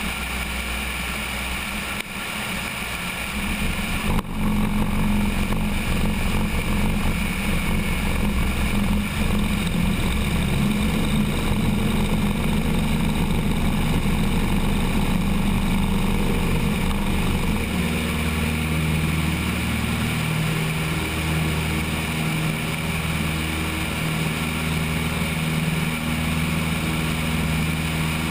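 Cessna 172's engine and propeller on a takeoff, heard from a camera on the wing. About four seconds in the engine comes up to full power; the rough rumble and rattle of the ground roll runs until about two-thirds through, when the sound settles into a steadier engine tone as the plane lifts off.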